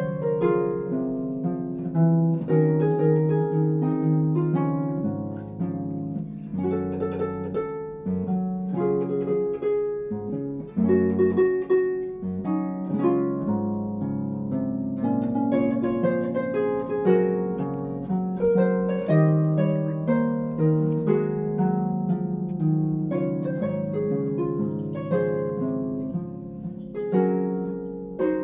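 Background harp music, a flowing run of plucked notes.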